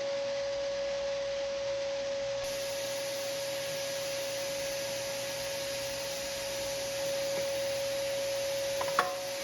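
Bosch palm router running at steady speed: one constant high whine over a hiss, the hiss growing brighter about two seconds in, with a short click near the end.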